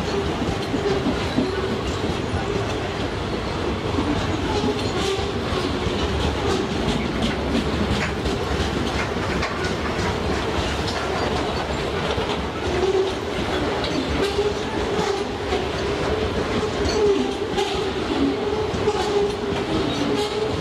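A long freight train of covered hopper wagons rolling past: a continuous rumble, with the wheels clicking over rail joints again and again. A faint wavering tone runs under it throughout.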